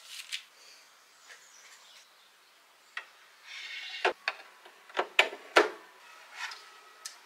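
Hard plastic parts of a sewing machine being handled: the spool holder and spool pin click and knock a handful of times, the loudest just after five seconds in, with a short rubbing rustle before that.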